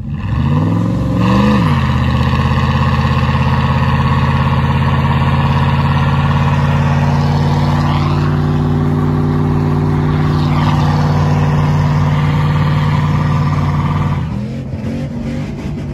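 Truck engine revved up hard and held at high revs for about twelve seconds during a burnout, then let back down near the end.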